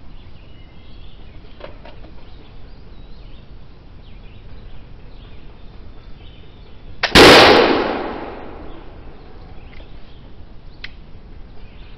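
A bobbed (cut-down) first-pattern 1740 Brown Bess flintlock musket fires a round ball over a black-powder charge, about seven seconds in. A sharp snap comes a split second before the main blast, which is very loud and trails off over about a second.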